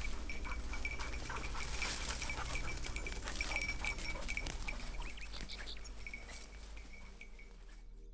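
A bell on a hunting setter's collar jingling irregularly as the dog works through the cover, fading away in the last few seconds.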